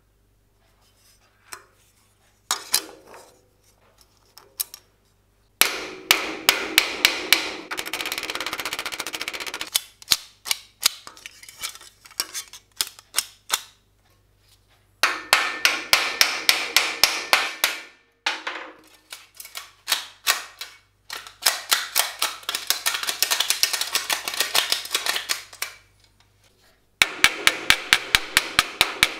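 A hammer striking steel sheet armor plate in quick runs of blows, about five a second, with the metal ringing between strikes. Several bursts are separated by short pauses.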